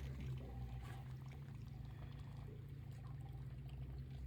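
Water trickling and splashing on a fishing boat, over a steady low hum.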